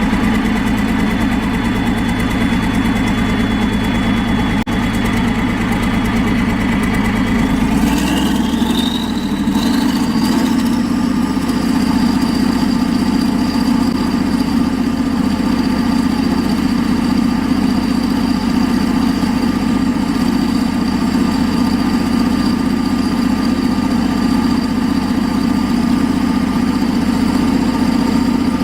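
Allis-Chalmers 65000 V12 diesel engine running steadily. About eight seconds in it picks up speed, with a whine climbing in pitch, then holds steady at the higher speed.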